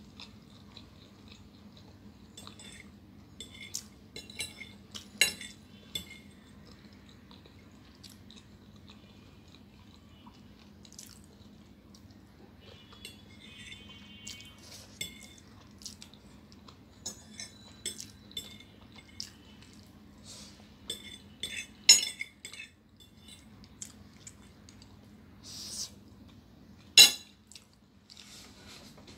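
Metal fork scraping and clinking on a plate while the last noodles are gathered up, a run of short sharp clicks and scrapes with the loudest clinks about two thirds of the way through and near the end, as the fork is laid down on the plate. A steady low hum underneath.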